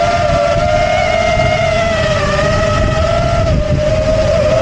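FPV quadcopter's electric motors and propellers whining steadily, the pitch wavering slightly with throttle, over low wind rumble on the onboard microphone.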